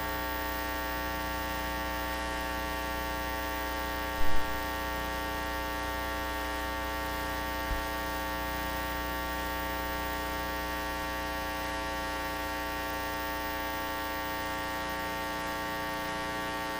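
Steady electrical mains hum, a buzz with many evenly spaced overtones, with a brief louder blip about four seconds in.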